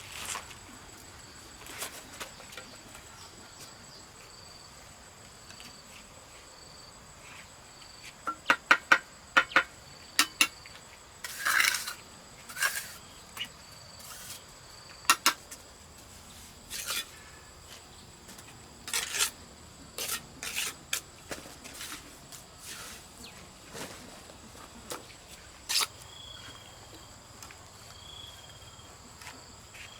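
Sharp clinks and taps of hand tools on hard building material, coming in irregular clusters, over a steady high-pitched insect drone.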